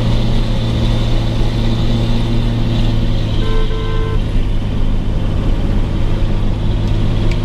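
Car engine and road noise heard from inside the moving vehicle, a steady low hum throughout. About three and a half seconds in, a brief tone sounds in two short parts.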